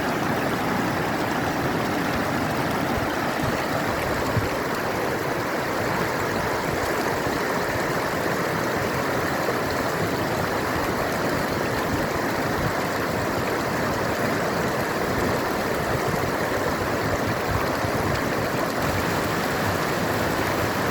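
River water rushing steadily in an even, unbroken noise.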